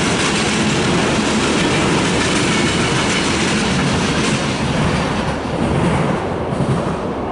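Freight train of tank cars rolling past, steel wheels running on the rails. The last car goes by about five seconds in and the higher part of the sound fades as the train recedes.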